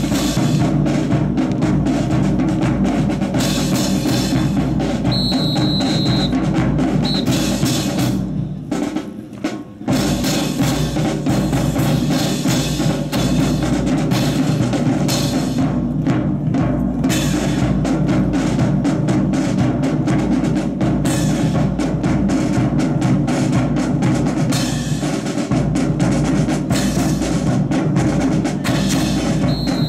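Marching drum cadence on snare and bass drums, a steady run of rapid strikes that briefly drops away about eight to ten seconds in. A short high steady tone sounds about five seconds in.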